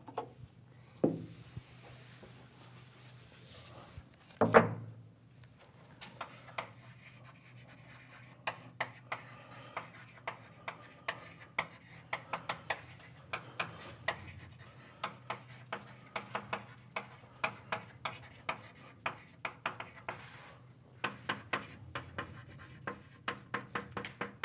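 Writing on a board: a run of short, sharp, irregular taps and scratches, several a second, pausing briefly about twenty seconds in. One louder thump about four and a half seconds in.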